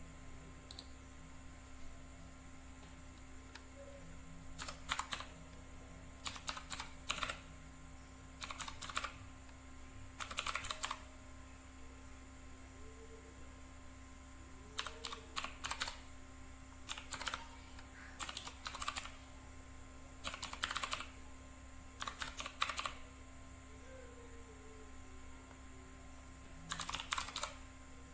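Redragon K552 mechanical keyboard with red switches being typed on in short bursts of keystrokes, a run of clacks every second or two with pauses between, and two longer breaks.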